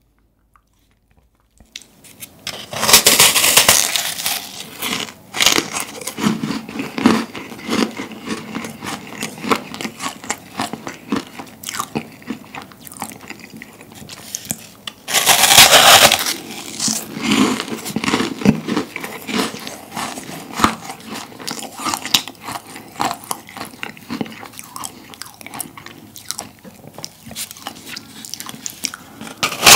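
Close-miked eating of a large meringue cookie: loud crunching bites about three seconds in and again about fifteen seconds in, with dense crackling chewing of the crisp meringue shell in between.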